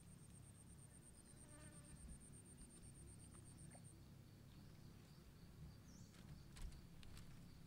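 Quiet outdoor ambience with a faint, high, rapidly pulsing insect trill that stops about halfway through. Near the end come a few soft clicks and crackles as bare feet step onto a platform of dry sticks.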